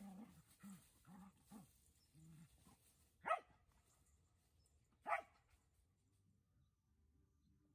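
Australian cattle dog giving a string of short low growls, then two sharp barks a little under two seconds apart.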